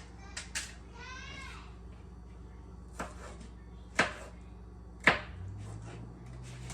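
Kitchen knife chopping potatoes on a cutting board: a few separate sharp chops about a second apart, the loudest two near the middle and toward the end.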